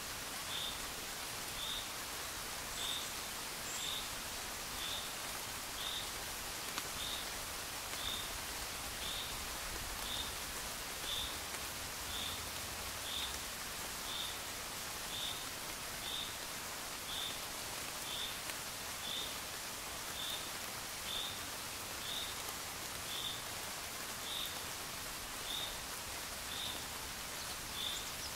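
Steady rain hiss, with a short high chirp from a small animal repeating about once a second.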